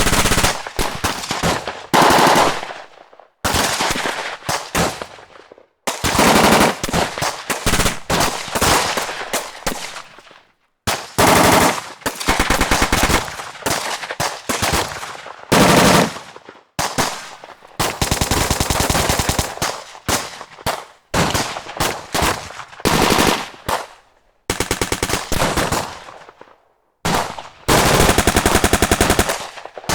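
Automatic gunfire in a series of rapid bursts, a second to a few seconds long, with short pauses between them and echoing tails after some bursts.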